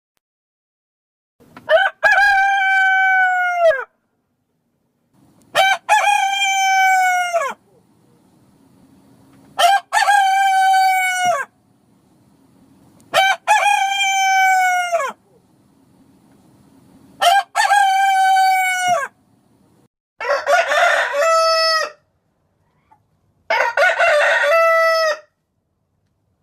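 Parrot imitating a rooster's cock-a-doodle-doo, crowing seven times, roughly every three to four seconds. Each crow lasts about two seconds, holds a steady pitch and drops at the end; the last two come out rougher.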